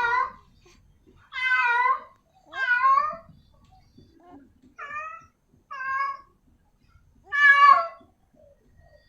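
Domestic cat meowing: five short calls, each about half a second long and roughly a second apart, the last the loudest. They are the calls of a female cat in heat calling for a male.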